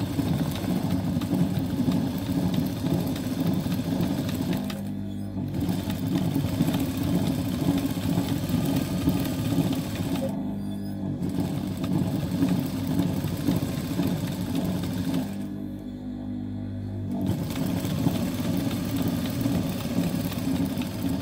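Typical industrial sewing machine running in long runs of fast stitching, darning a tear in denim back and forth, with three brief stops in between.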